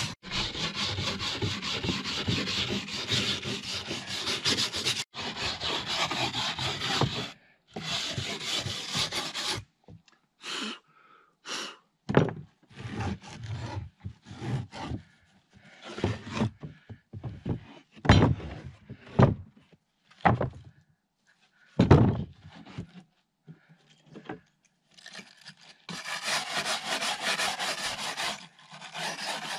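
A hand tool scraping steadily on wood for several seconds at a time, at the start and again near the end, with short scattered scrapes and a few sharp knocks of wood in between.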